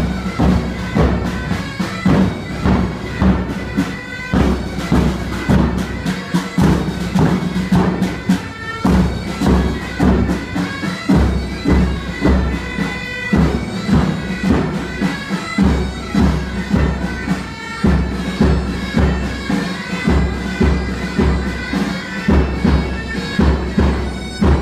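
Pipe band of Highland bagpipes and drums playing a march: the pipes' steady drone and melody over a regular, even drumbeat.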